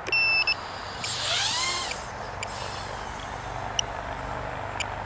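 A short electronic beep, then the Tinyhawk 2 Freestyle micro quad's small brushless motors spinning up in a rising whine about a second in that levels off, over a steady hiss with a few faint clicks.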